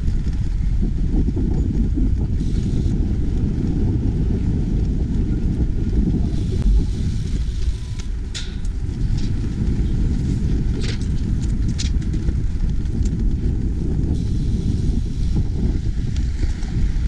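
Steady low rumble of wind buffeting an action camera's microphone on a moving bicycle, with road and traffic noise and a few short clicks near the middle.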